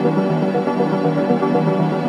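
Electronic background music playing at a steady level.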